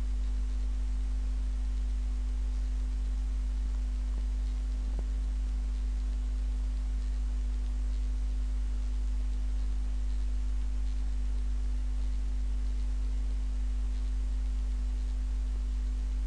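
Steady low electrical hum, with a fainter higher steady tone over a light hiss, unchanging throughout. A faint click comes about five seconds in.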